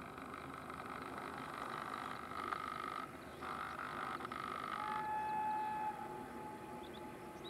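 Frogs calling in a chorus, a buzzing trill that stops and starts in bouts. About five seconds in, a single steady tone sounds for about a second.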